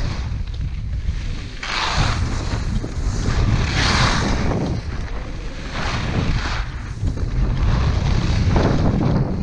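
Wind buffeting the microphone in a low rumble as a skier descends. About every two seconds the hiss of ski edges scraping across packed snow swells on each turn.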